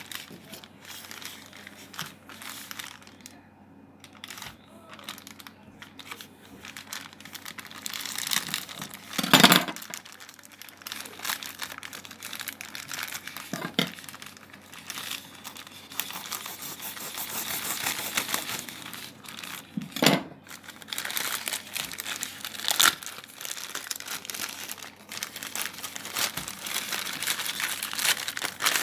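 Plastic courier mailer bag being crinkled and torn open by hand: continuous crackling of thin plastic with several sharper, louder crackles, the loudest about ten seconds in.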